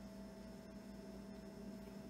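Steady low electrical hum with faint room tone.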